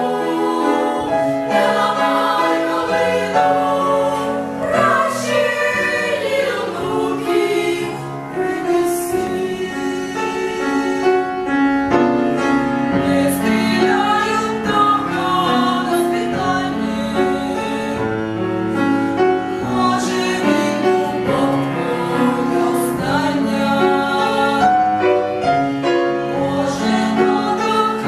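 Children's choir singing in several parts, one continuous passage of held, changing notes.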